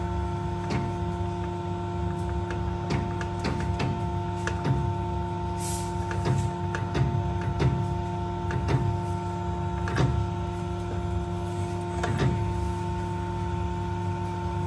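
Radial crimping press running with a steady, many-toned motor hum while it presses the lower metal cup of an air spring onto its new Dunlop rubber sleeve, with scattered sharp clicks and knocks from the machine and the metal parts.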